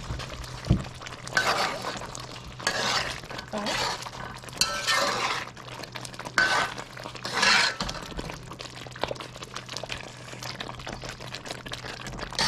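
A spoon stirring scallions and shallots into pumpkin curry in a pot, with several short scrapes and clinks against the pot that grow quieter in the last few seconds, over a low steady hum.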